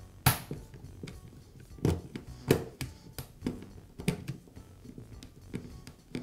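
Screwdriver turning a screw out of a plastic chainsaw chain brake housing: irregular clicks and taps of the metal bit against the screw and the cover plate. The loudest taps come about a quarter second in and around two to two and a half seconds.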